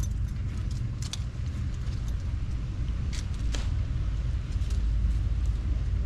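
Wind buffeting the microphone, giving a steady, fluttering low rumble that grows a little stronger near the end, with a few light clicks.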